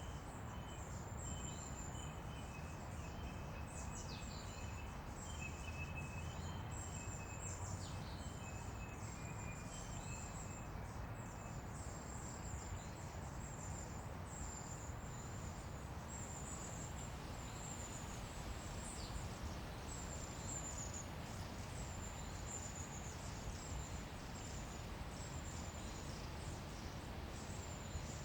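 Outdoor nature ambience: short high-pitched trills repeating about once a second, with quick downward chirps among them, over a steady low rumble. A second, lower trilling call joins in for the first dozen seconds.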